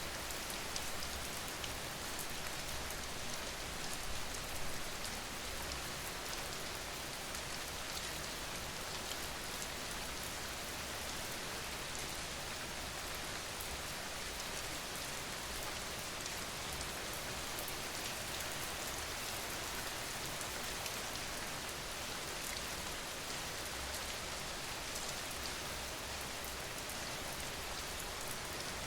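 Steady rain falling without a break, with many small drop hits through it.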